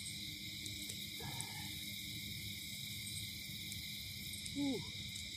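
Night chorus of crickets and other insects: a steady, shrill, unbroken trill in several high bands. About four and a half seconds in there is one brief louder sound that falls in pitch.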